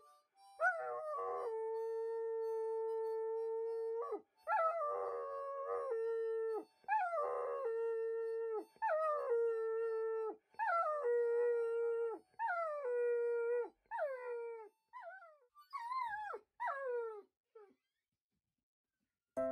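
A dog howling: about nine long, held howls one after another, each ending in a falling pitch, the later ones shorter.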